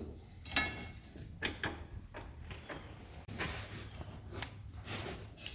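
Scattered metal clinks and knocks of hand tools and parts as the backhoe's pulley drive shaft is turned by hand to reach a bolt. There is a brief ringing clink about half a second in, then light clicks.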